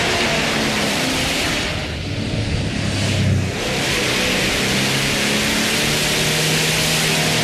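Pontiac GTO Judge V8 held at high revs in a burnout, rear tyres spinning with a steady high hiss of tyre squeal. About two seconds in, the hiss briefly falls away and the low engine note comes forward, loudest a little past three seconds.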